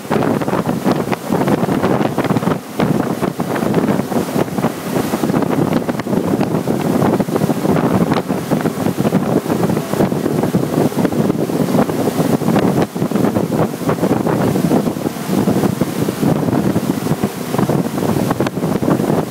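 Wind buffeting the microphone on a Centurion Falcon Barefoot ski boat running at towing speed, over the steady rush of water churning in its wake.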